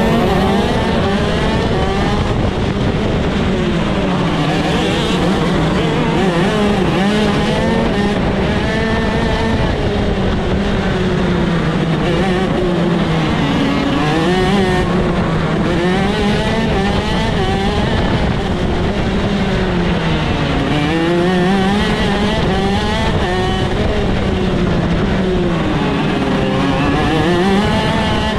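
Shifter kart engine at racing speed, heard on board, its pitch climbing and dropping over and over as it accelerates, shifts and slows through the corners.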